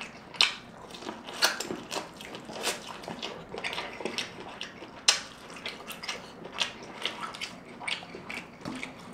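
Close-miked chewing of a mouthful of corn on the cob: an irregular run of sharp little clicks and smacks from the mouth, a few of them louder, about half a second, a second and a half and five seconds in.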